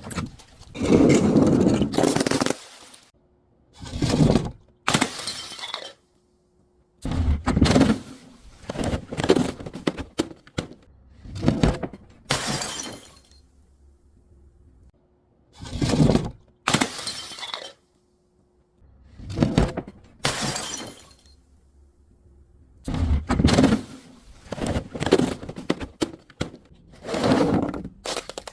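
Glass bottles being smashed, one after another: a long irregular series of crashes and shattering, each burst followed by a short gap.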